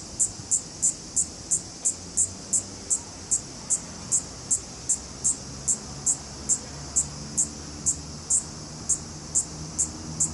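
Kaempferi cicada (niinii-zemi, Platypleura kaempferi) singing close by: a steady series of short, high-pitched buzzing pulses, about three a second.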